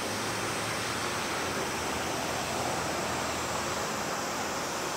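Four jet engines of a Boeing 747-400 freighter at takeoff power during its takeoff roll, heard as a steady rushing noise.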